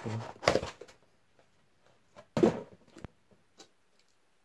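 Handling noises from a cardboard package being opened: a short rustle about half a second in, a louder sudden rustling thump about two and a half seconds in, then a sharp click and a few faint ticks.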